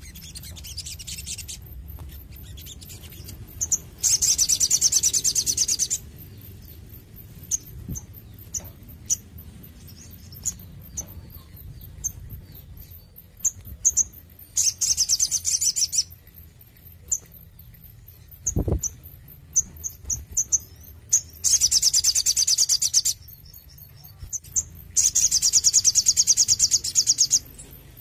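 Male olive-backed sunbird singing: four loud, fast, high-pitched trilled phrases, each lasting one to two seconds, with single sharp chips in between. There is a single low thump about two-thirds of the way through.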